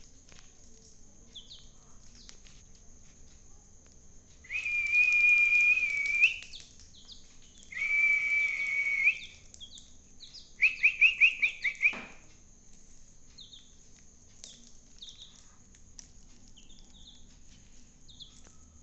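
Young chicks peeping faintly with short high cheeps throughout. In the middle come three loud high whistles: two long, steady whistled notes and then a quick run of about eight short whistled notes.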